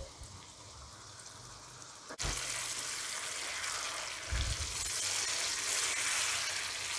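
Brinjal, peas and onion sizzling in oil in a frying pan with tamarind pulp just added: a faint sizzle at first, then much louder from about two seconds in as a silicone spatula stirs, with a few soft knocks against the pan.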